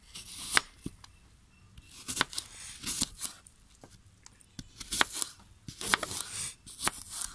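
A kitchen knife cutting apple into chunks on a cutting board. It makes several crisp chops at irregular intervals as the blade goes through the crisp flesh and hits the board.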